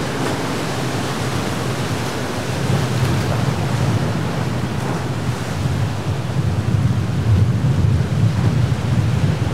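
Breaking surf and rough water, with wind buffeting the microphone; the rush grows louder a few seconds in.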